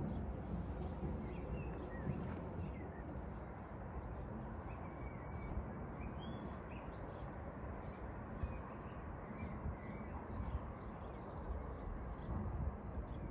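Outdoor ambience: small birds chirping in short, repeated high calls over a steady low background rumble.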